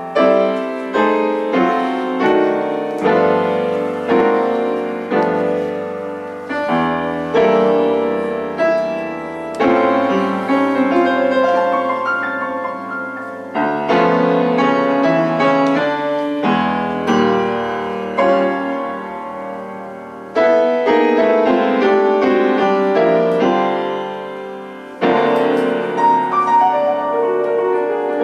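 Background piano music: a slow melody over chords, each note struck and then fading.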